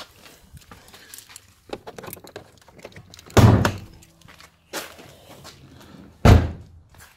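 Nissan Skyline R32 GT-R door handled with two heavy thunks about three seconds apart, the first about a third of the way in and the second near the end, with light rustling and clicks between.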